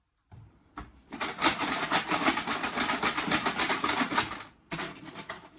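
A bunch of numbered giant wooden pop sticks rattling and clattering as they are shaken or stirred in a mop bucket. There is a dense run of knocks from about a second in, then a shorter burst near the end.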